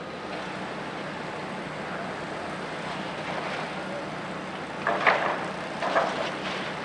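Steady vehicle or machinery noise with a low hum, and two brief louder sounds about five and six seconds in.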